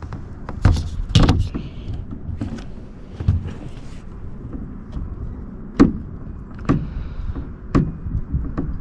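A few sharp knocks and clunks from hands working a part on a car's steering column, trying to slide it off; it does not slide. The loudest knocks come about a second in and near six seconds.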